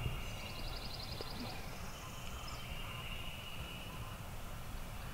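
Spring woodland ambience: a small bird's quick, high trill of about a dozen notes in the first second and a half, over a steady high hum and a low rumble.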